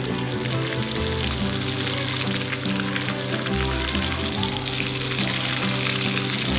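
King fish (seer fish) pieces sizzling and crackling in hot oil in a frying pan, a steady fizz with small pops, over background music.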